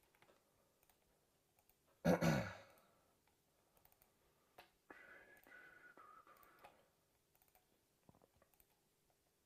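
Scattered quiet clicks of a computer mouse, keyboard and pad-controller buttons. About two seconds in, a short loud sound with a falling pitch cuts in for about half a second, and a faint held tone sounds for a couple of seconds near the middle.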